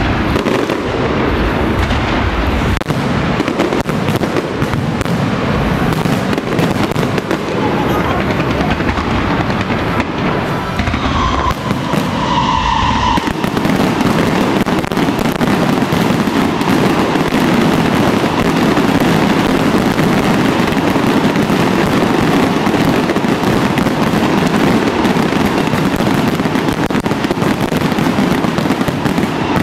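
Aerial fireworks show: shells bursting overhead in a dense, continuous barrage of bangs and crackling, growing denser and a little louder about halfway through.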